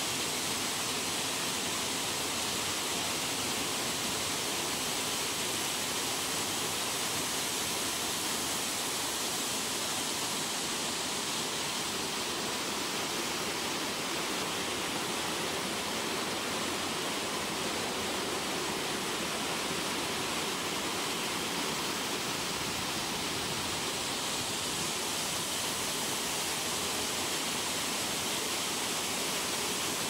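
A waterfall and the rocky stream below it: a steady, unbroken rush of falling and tumbling water.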